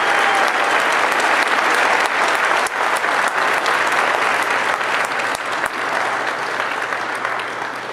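Large crowd applauding in a big hall, a dense steady clapping that tapers off near the end.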